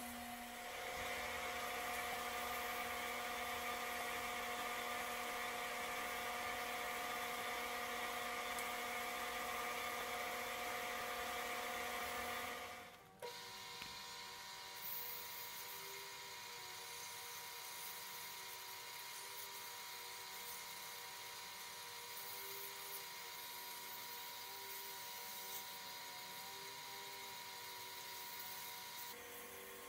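A small electric power tool's motor running with a steady whine. About 13 seconds in it drops out briefly, then runs on quieter at a different pitch that wavers slightly, as if under changing load.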